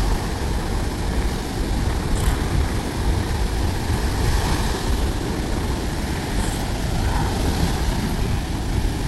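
Steady rush of sea waves on a beach, under a heavy, flickering wind rumble on the microphone.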